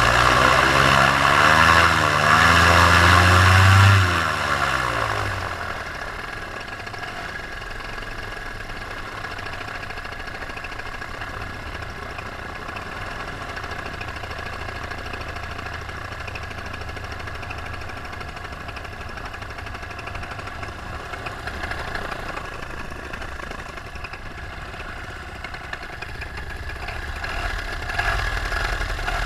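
Paramotor's two-stroke engine running loud at full throttle, then falling in pitch and loudness about four seconds in and running on steadily at a lower level. This is the motor's full-throttle reference sound before its loss of power.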